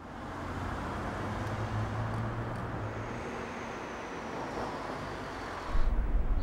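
Road traffic noise: a steady wash of vehicle sound with a faint falling whine in the middle, as of a passing vehicle. A deeper, louder rumble comes in near the end.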